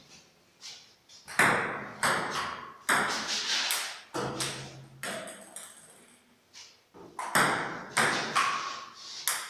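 Table tennis rally: the celluloid ball clicking off paddles and the table in quick succession, each click echoing in a bare hard-walled room, with a short lull midway.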